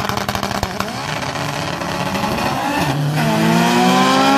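Two drag-racing cars launching off the line and accelerating hard down the strip. Rapid popping comes first, then the engines' pitch climbs, drops at a gear shift about three seconds in and climbs again.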